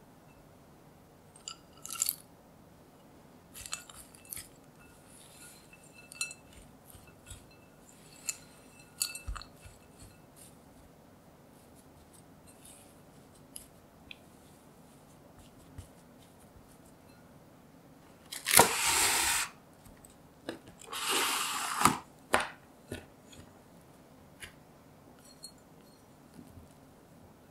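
Red silicone spatula pressing and scraping crumbly peanut butter cookie dough in a glass bowl, with scattered soft scrapes and clinks against the glass. About two-thirds of the way through come two loud rustling, tearing bursts of about a second each, fitting cling film being pulled off its roll, before the dough is tipped out onto the plastic wrap.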